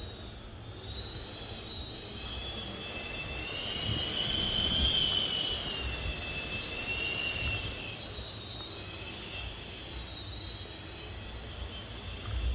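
Strong wind whistling through a gap, a high whistle with several tones that wavers up and down in pitch and swells loudest about four to five seconds in, over a low gusty rumble.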